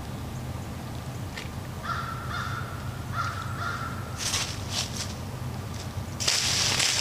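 A crow cawing a few times, short calls about two seconds in, over a steady low hum. Near the end, dry leaves crunch and rustle loudly under a deer's hooves as it steps forward, the loudest sound.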